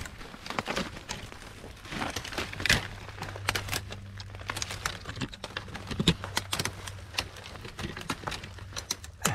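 Irregular crackling and rustling, like dry leaf litter and twigs, with a faint steady low hum from about two seconds in until near the end.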